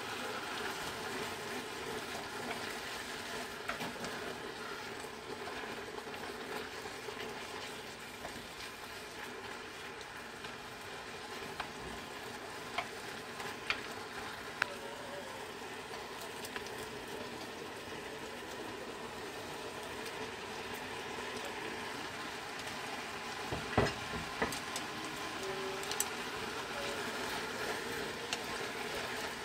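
Kimchi and pork sizzling steadily in a frying pan as they are stir-fried with wooden chopsticks, with scattered sharp clicks of the chopsticks against the pan. Near the end, a few louder clicks and knocks.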